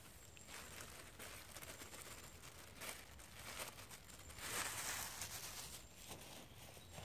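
Plastic bag crinkling and rustling in irregular bursts as bannock dough is kneaded inside it, loudest about two-thirds of the way through.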